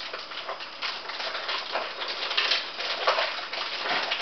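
Frying pan sizzling and crackling irregularly with a block of ice in it, melt water hissing on the hot metal.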